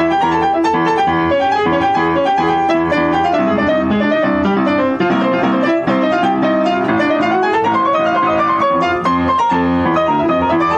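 Yamaha upright acoustic piano played fast: a right-hand solo line of quick running notes over left-hand chords, with a run that climbs and then falls back about two-thirds of the way through. The line is a transcribed jazz-fusion keyboard solo, sight-read from the page.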